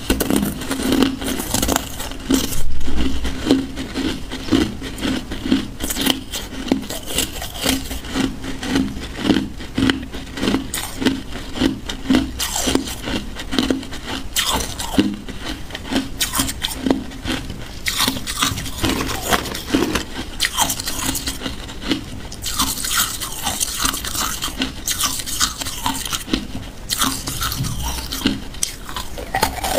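Hard blue-dyed ice pieces being bitten and chewed close to the microphone: a steady run of crisp crunches and grinding as the ice breaks between the teeth.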